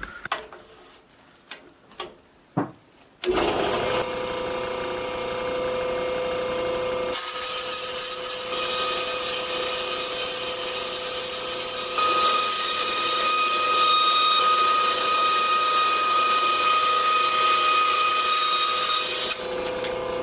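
A few knocks, then a Delta 28-560 16-inch band saw starts about three seconds in and runs steadily at its low metal-cutting speed. From about seven seconds a loud hiss joins it as the metal-cutting blade saws through thin acrylic sheet. The hiss stops about a second before the end while the saw keeps running.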